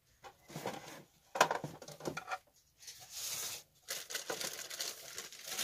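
Hard parts knocking and clattering against a hard plastic hydroponics reservoir box, the loudest knock about one and a half seconds in. Plastic packaging rustles through the second half.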